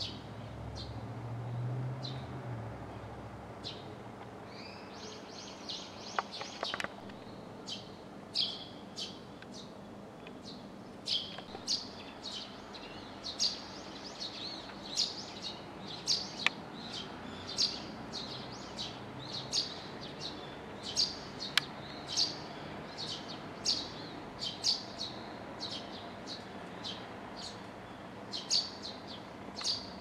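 Eurasian tree sparrows chirping: short, high chirps, scattered at first, with a quick run of repeated notes about six seconds in, then coming about once or twice a second from around eleven seconds on. A faint low rumble lies under the first few seconds.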